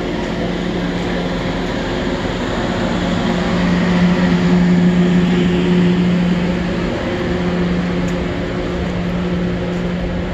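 Steady hum from the standing TRAIN SUITE Shiki-shima (E001 series) luxury train, a low tone over a wash of equipment noise. It swells somewhat louder around the middle.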